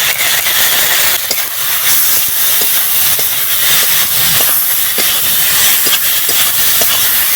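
Ginger and cumin paste frying in hot oil with the vegetables in a pan: a steady sizzling hiss with scattered small pops and crackles.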